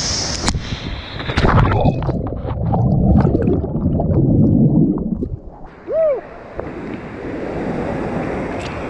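A person jumps into the waterfall's plunge pool: a splash, then several seconds of muffled churning and gurgling water heard from underwater. After that the steady rush of the waterfall returns.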